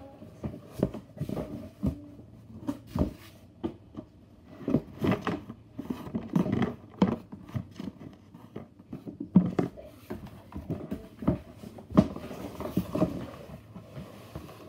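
Cardboard box being worked open with a safety pin and its flaps pulled back: irregular scratching, tearing and knocking of cardboard, with a sharper knock about twelve seconds in.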